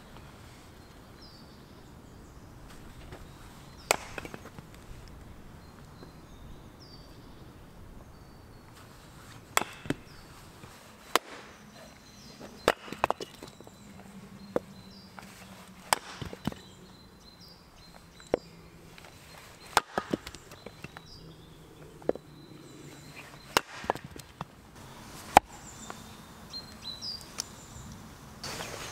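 Hatchet splitting firewood rounds on a tree-stump chopping block: about fifteen sharp cracks of the blade biting and the wood splitting, irregularly spaced. The strokes are sparse at first and come more often from about ten seconds in, some in quick pairs, with the loudest near the end.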